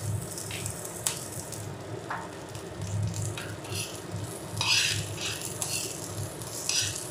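Chopped garlic and sliced green chillies sizzling in hot oil in a frying pan, stirred with a steel spoon that scrapes across the pan. The scraping and crackling come in short bursts, loudest a little after the middle.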